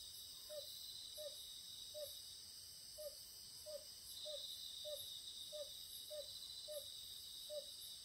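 Crickets and other night insects trilling steadily and high, one of the trills growing louder about halfway through. Under it a short low note repeats about one and a half times a second, the call of an Oriental fire-bellied toad.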